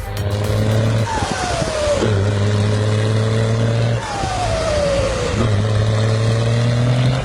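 Old Volvo running through an unusual modified exhaust: a steady low drone, broken three times, about every three seconds, by a whistle that falls in pitch for about a second.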